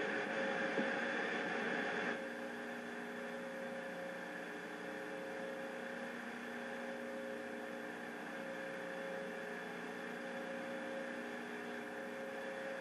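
Steady electrical hum of several tones over hiss from a television playing a VHS tape past the end of its recording. About two seconds in, the louder hiss drops away and the blank-tape hum carries on evenly.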